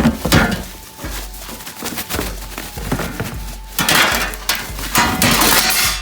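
Metal parts of an aftermarket cold air intake kit, its heat shields and intake pipe, clinking and clattering as they are handled, with a louder run of rattling from about four seconds in.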